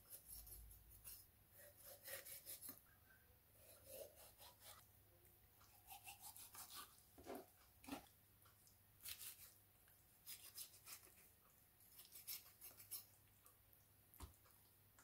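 Faint, scattered scraping and crackling of a kitchen knife cutting through a raw whole chicken's skin and joints on a wooden cutting board, in short irregular strokes, with one sharp click near the end.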